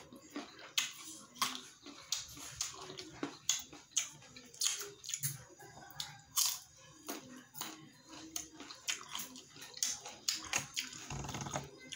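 Close, wet chewing and crunching of crisp mango slices, a sharp crunch every half second or so as the firm fruit is bitten and chewed.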